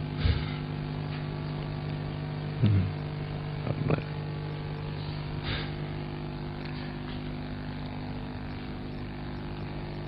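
Steady low electrical hum, a drone of several even tones stacked above one another, with a few short faint sounds in the first six seconds.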